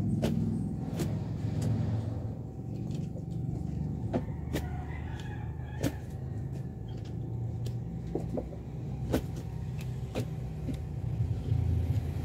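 Bunches of green bananas being handled and set down, giving scattered sharp knocks and clicks, about a dozen, over a steady low rumble.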